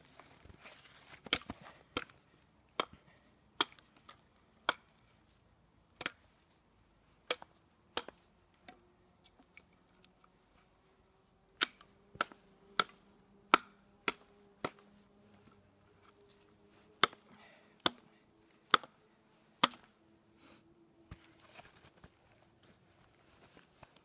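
Dead spruce twigs snapped by hand, giving sharp cracks about one a second. They come in three runs with short pauses between.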